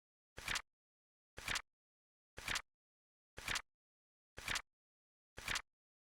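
Flip clock sound effect: a crisp flap clicking once a second, six times, each a small click followed at once by a louder snap.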